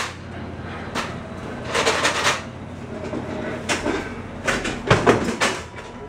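Short rustling and clattering handling noises, with a heavier thump about five seconds in, from a man working at an aluminium stepladder and stepping down from it.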